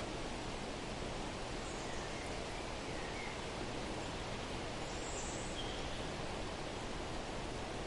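Steady outdoor background hiss with a few faint, brief bird chirps scattered through it.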